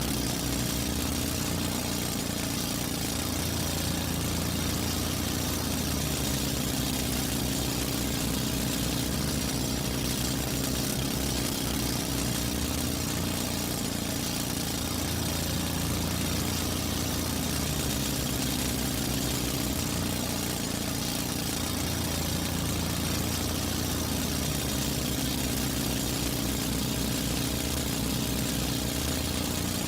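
Construction drill running steadily, a continuous mechanical drone with a low hum that swells and eases every several seconds.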